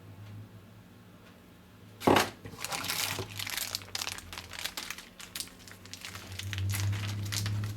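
Plastic packaging crinkling and crackling as it is handled, starting with a sharp crackle about two seconds in and going on densely after that, over a low steady hum.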